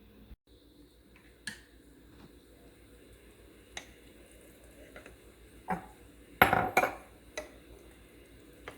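Kitchen utensils and dishes clinking and knocking: a few separate sharp knocks spread through, with the loudest pair close together about two-thirds of the way in.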